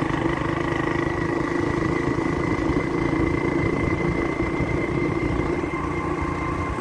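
Motorcycle engine running at a steady pitch while being ridden, with a constant low rumble beneath.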